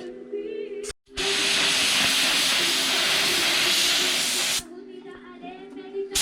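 Paint spray gun hissing in one long burst of about three and a half seconds, spraying thinned metallic black paint, then starting a second burst near the end.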